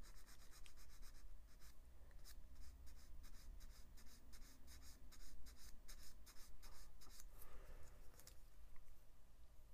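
A sanding stick scraping back and forth over the edge of a small plastic model kit part in quick, short, faint strokes, about four or five a second, smoothing off a gate nub. The strokes stop about seven seconds in.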